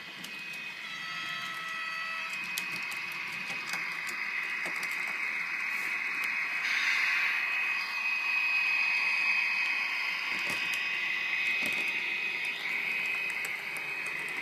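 HO-scale model diesel locomotive running on its track, its small electric motor giving a steady high whine with gear hum, growing louder as it passes close, with scattered light clicks.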